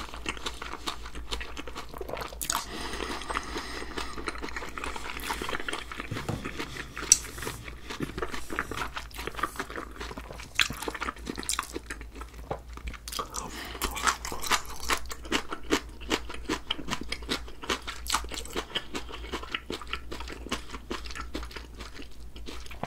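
A person chewing a mouthful of sea squirt bibimbap and shredded radish salad close to the microphone: steady wet chewing and crunching full of small clicks, with one sharper click about seven seconds in.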